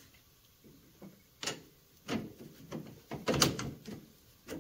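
Metal knocks and clicks as a lift-kit spacer and bolt are worked by hand into the front suspension mount of a Polaris Ranger 400: about five irregular knocks, the loudest a quick cluster about three and a half seconds in.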